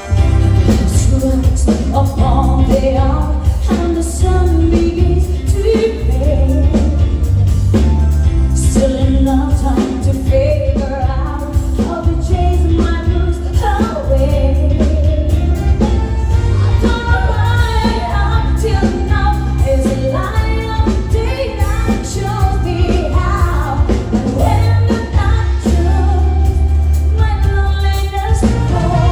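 Live pop band playing with a lead singer, over a strong bass and drum beat.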